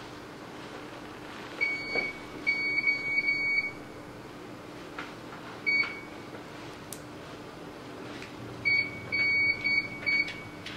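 Short electronic beeps, all at the same high pitch, in irregular clusters: one a little over a second in, a quick run of several between about two and three and a half seconds, a single one near six seconds, and another quick run near the end. Under them runs a faint steady hum.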